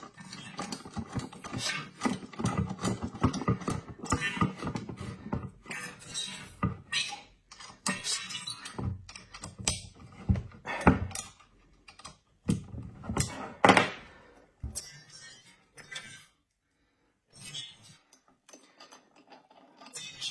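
Irregular clicks, taps and knocks of small metal parts being handled and fitted together as a bearing and shaft are mounted by hand, with a few louder knocks and a short break about two thirds of the way through.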